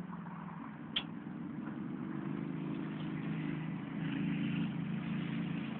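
A motor vehicle engine humming steadily, swelling about four seconds in, with one sharp click about a second in.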